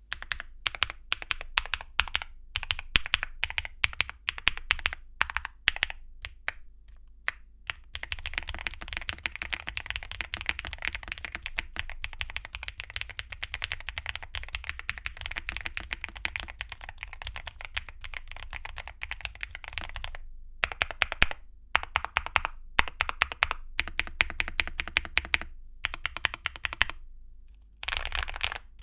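Typing on an Evoworks Evo80 mechanical keyboard with Gateron Quinn tactile switches and Cherry-profile PBT keycaps. It starts with separate keystrokes, turns to fast continuous typing about eight seconds in, and from about twenty seconds in comes in short bursts with brief pauses.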